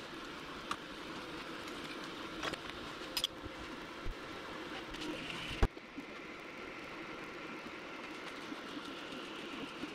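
Prusa Mini 3D printer running: steady fan hum with stepper motors moving the print head. A few light clicks, with a sharp one about five and a half seconds in.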